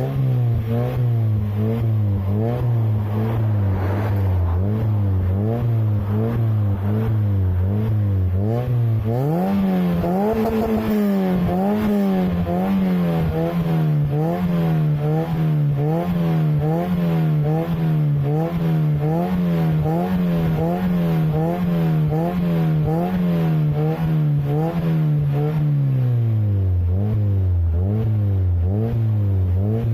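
Toyota 4ZZ-FE 1.4-litre four-cylinder engine revving through a decatted exhaust with a custom rear box, the revs held up and wavering rapidly about twice a second. About nine seconds in the revs climb to a higher plateau, wavering the same way, and fall back to the lower level near the end.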